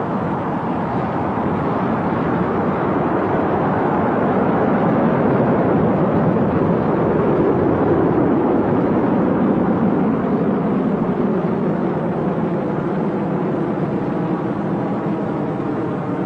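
Rocket engines firing at launch: a loud, steady rush of exhaust noise that swells to its loudest about halfway through and eases slightly toward the end.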